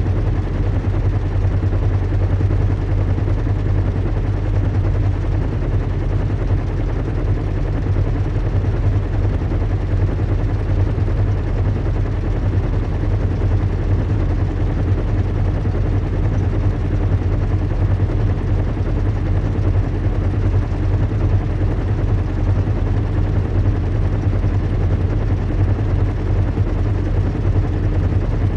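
Recreated zeppelin cabin ambience: a steady, deep engine rumble with a faint hum above it and a soft hiss.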